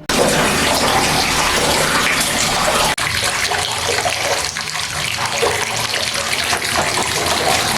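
Water running hard and steadily from a bathroom tap into a bath, with a momentary break about three seconds in.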